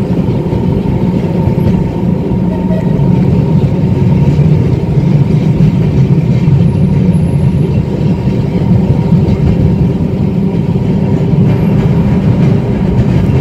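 1934 English Electric boat tram running along street track, heard from aboard the open-sided car: a steady rumble of wheels on rails and motors, with a thin steady whine above it.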